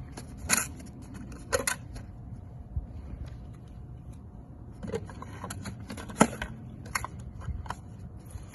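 Battery being fitted into a Javelin command launch unit (CLU): a series of sharp clicks and scrapes of the battery and its housing being handled and latched, the loudest about six seconds in, over a steady low rumble.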